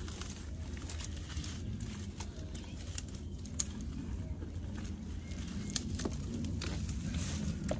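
Dry leaves, twigs and roots rustling and crackling in short, irregular bursts as gloved hands rummage and pull weeds out of a soil bed. A steady low rumble runs underneath.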